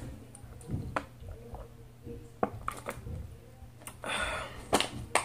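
Close-miked mouth sounds of drinking from a plastic bottle: a few small wet clicks and swallows, and a short breath out about four seconds in.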